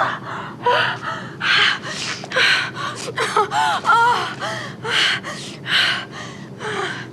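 Rapid, heavy gasping breaths, about two a second, with short wavering moans in the middle: the shuddering, orgasmic aftermath of a sneeze.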